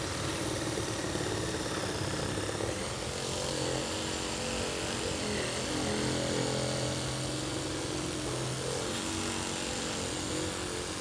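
Reciprocating saw with a metal-cutting blade running steadily while cutting through a nail under a wall's bottom plate, its motor pitch wavering a little as the load changes.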